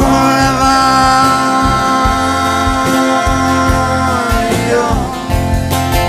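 Background music: an acoustic country-style song with guitar, a long held melody note that slides down after about four and a half seconds.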